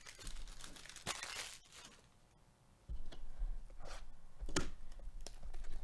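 Gloved hands handling and opening a cardboard 2021 Panini Mosaic baseball hobby box: rustling and scraping of card stock, with a few sharp taps and, from about three seconds in, low bumps as the box is moved about.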